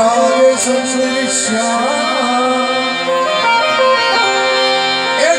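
Devotional folk music: a wavering melody over steady sustained notes, with a few drum strokes.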